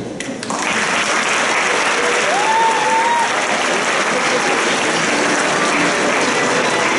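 Audience applauding, starting about half a second in and holding steady, with one brief call rising in pitch over it about two seconds in.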